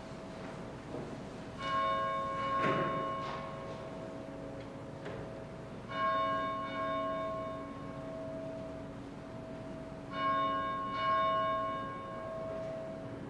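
Church bell ringing: strokes about every four seconds, some in quick pairs, each leaving a long ringing tone, before the service begins.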